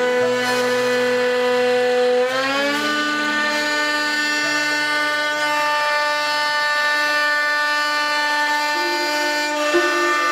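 Small 6090 CNC router cutting a straight border groove into a wooden plaque with a V-bit. The spindle whines steadily and the stepper motors give off a set of steady tones, which glide up in pitch about two seconds in and then hold.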